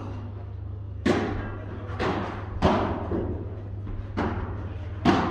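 Padel ball being hit back and forth in a rally: five sharp pops of ball on paddle, glass or court, roughly one a second, each ringing on in the echoing indoor hall, over a steady low hum.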